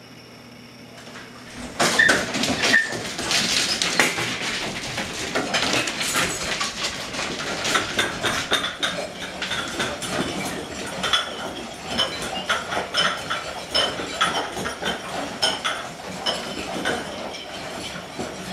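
Several dogs eating from bowls at once: a dense run of clinks, clicks and crunching as food and bowls rattle, starting about two seconds in.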